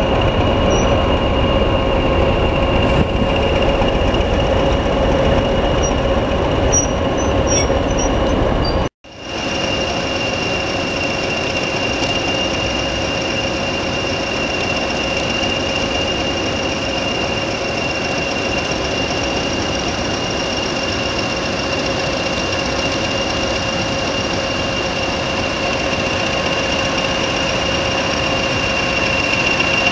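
Diesel locomotive running with a steady high-pitched whine over a low rumble. The sound cuts out for an instant about nine seconds in and comes back with the same whine and less rumble.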